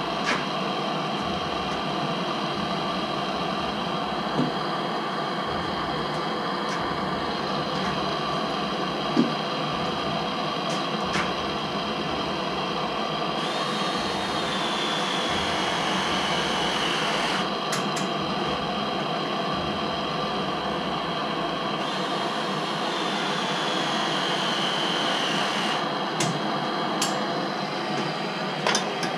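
Hand-held MAP-gas torch burning steadily with an even hiss, set at a moderate flame for soldering copper pipe. A few light clicks and knocks come through, and twice a thin high whistle glides slowly down in pitch.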